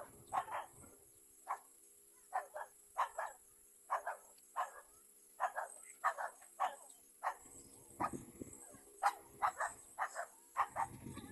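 An animal calling in a long run of short, sharp calls, roughly two a second and unevenly spaced. Twice in the second half a low rumble joins them.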